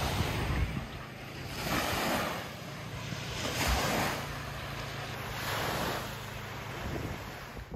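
Water washing in waves, with wind on the microphone, the rushing noise swelling and fading about every two seconds over a steady low hum.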